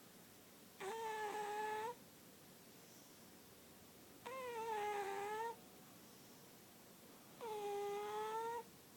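Cat snoring with a whistling tone on each breath: three evenly spaced snores, each about a second long, roughly three seconds apart.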